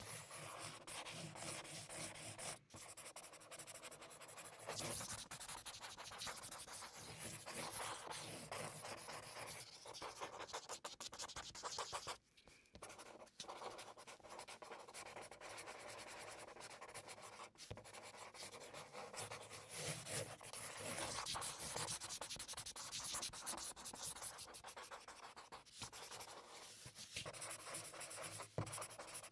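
Copic alcohol marker rubbing and scratching across paper in many quick, sped-up shading strokes, broken by a few sudden short gaps.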